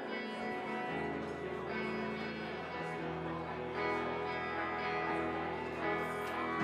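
Live rock band playing amplified guitars, with low bass notes coming in about a second in.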